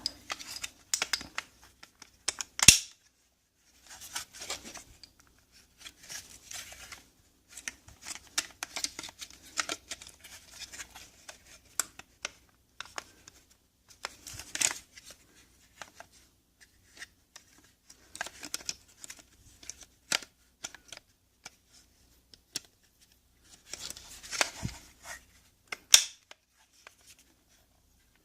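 Small plastic parts of a car's power window switch being handled and pushed into a switch housing: irregular clicks, scrapes and rustles, with two sharper clicks, one about three seconds in and one near the end.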